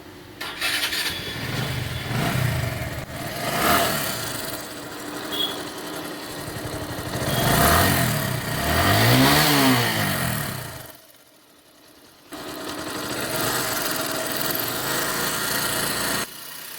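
Bajaj Discover 135's single-cylinder four-stroke engine running and being revved by hand, with two sharp throttle blips rising and falling near the middle and a brief drop partway through. A light tick-tick comes from the top end on light throttle. It is mild while the engine is cold and worsens once it is hot, which the mechanic traces to the tappets, camshaft, rocker arms or timing chain.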